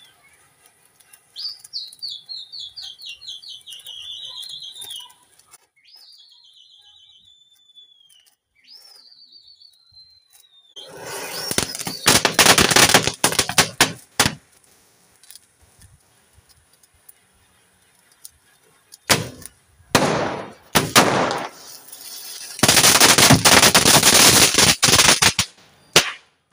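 Small Diwali fountain firecrackers (anar) going off: loud, dense crackling hiss of spraying sparks, once about eleven seconds in for a few seconds and again, longer, near the end, with shorter sharp bursts between. Before them come several high whistling tones that fall in pitch.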